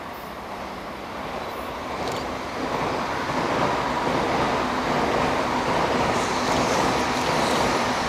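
EF65 electric locomotive hauling container freight wagons, approaching on the rails. Its running noise grows louder over the first few seconds and then stays steady, with a faint steady whine.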